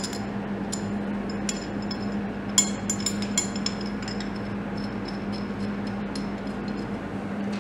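Light metallic clinks and taps as an aluminium crank-sensor bracket is handled and fitted over two studs, the loudest clink about two and a half seconds in. A steady low hum runs underneath.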